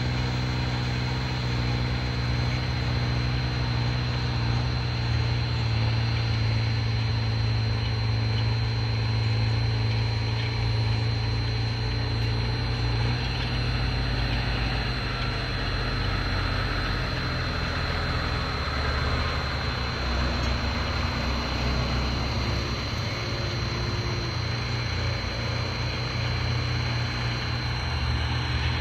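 Tractor diesel engine running at a steady, unchanging speed, with a constant thin high tone above it.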